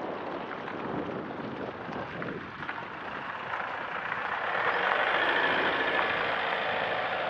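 Cars passing close by on a wet road. Their tyre hiss swells to its loudest around five to six seconds in as an SUV goes past, then eases off.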